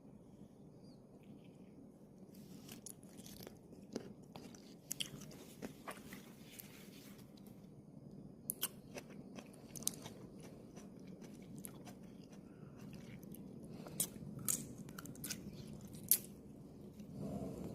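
Food containers and plastic packaging handled and set down one at a time while a fridge is sorted: scattered light clicks, taps and crinkles.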